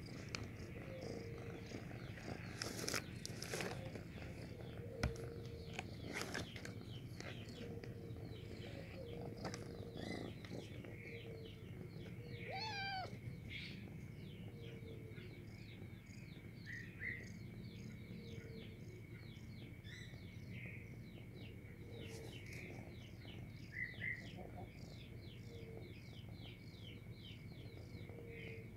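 White domestic cat purring steadily, with one short meow about halfway through. A few sharp knocks sound early on.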